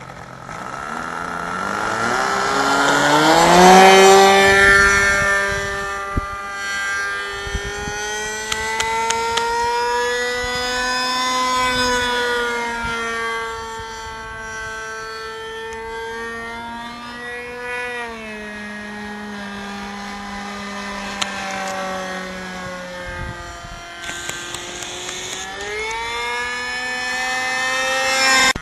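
GMS .47 two-stroke glow engine of an RC model airplane, revving up over the first four seconds and then running at high speed, its pitch and loudness rising and falling slowly.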